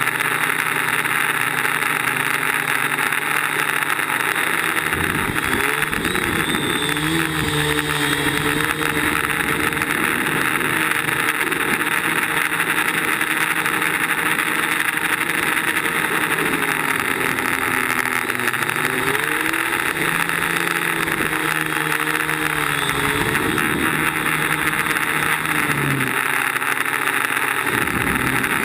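DJI Flame Wheel quadcopter's electric motors and propellers buzzing steadily, heard from the camera mounted on the craft, with a hiss of rushing air. The motor pitch rises and falls a few times as the throttle changes.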